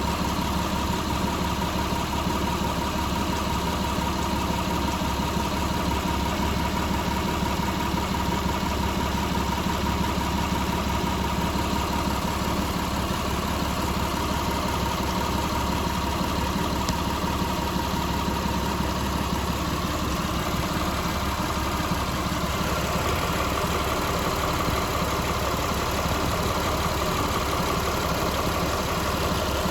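Mitsubishi 380's 3.8-litre V6 idling steadily, with a steady whine over the idle that shifts slightly higher about twenty seconds in.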